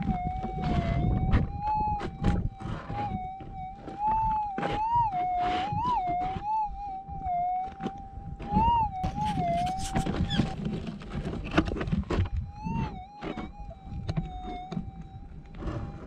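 Minelab gold detector's audio tone, a steady hum that warbles up in pitch again and again as the coil sweeps over a buried target, the signal of a nugget in the hole. Scattered scrapes and knocks and a low rumble underneath.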